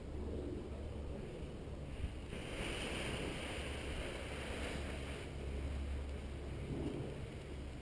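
Wind buffeting the microphone as a steady low rumble, with a louder stretch of hiss from about two and a half to five seconds in.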